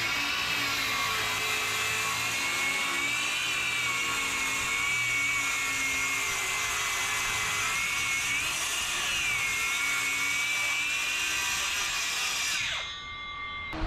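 Circular saw ripping a long cut through 3/4-inch plywood: a steady high whine of the blade under load, dipping briefly about two-thirds of the way through. Near the end the saw is switched off and the blade winds down with a falling whine.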